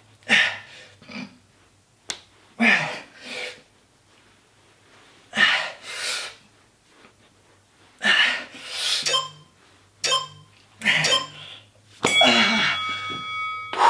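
A man's heavy, forceful breathing under strain, short loud exhalations coming about every one to two seconds, some with a grunt in them, from the effort of a hard abdominal crunch exercise.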